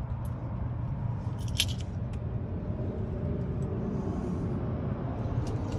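A car engine idling: a steady low rumble, with a few light clicks over it.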